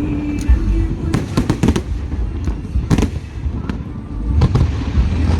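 Aerial fireworks bursting in quick succession: a string of sharp bangs and crackles at uneven intervals over a continuous low rumble.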